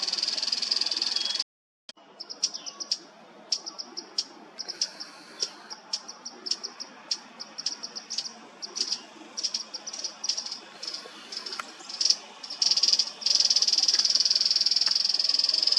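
A high-pitched insect buzz, steady at first, that stops abruptly for about half a second. It returns as short irregular pulses mixed with sharp ticks, then settles back into a continuous buzz near the end.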